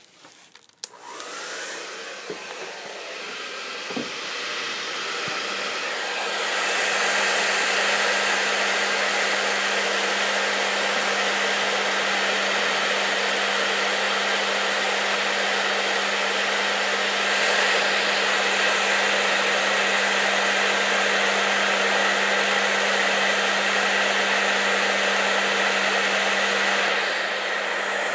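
Hair dryer running, blowing hot air for a heat test of a fire alarm heat detector. It switches on about a second in, gets louder around six seconds in, runs steadily with a low motor hum, and eases down near the end.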